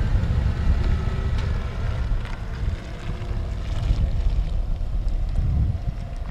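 Wind buffeting the microphone of a camera on a moving vehicle, with low road and engine rumble underneath; the level dips briefly partway through.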